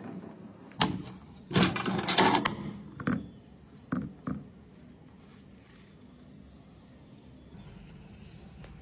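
A series of clunks and knocks, the loudest a cluster around two seconds in and two smaller ones about four seconds in, as the microwave oven's door is opened just after it has stopped and things inside are handled; then quieter, with a few faint bird chirps.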